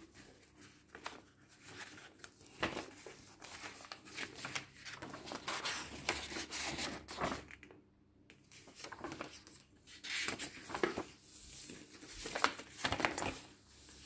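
Paper rustling and crinkling, with irregular soft clicks and page flips, as the thick pages and tucked-in vintage paper inserts of a handmade junk journal are handled and turned. There is a short quiet pause partway through.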